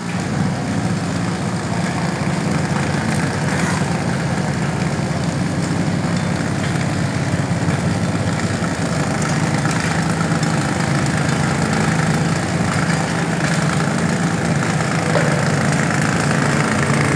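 Battery-powered 24-volt cubicle lime dispenser running, its electric spinner and built-in anti-bridging vibrator giving a steady hum as it throws lime onto a cubicle bed.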